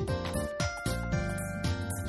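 Instrumental background music with a steady drum beat, held melody notes and a bass line.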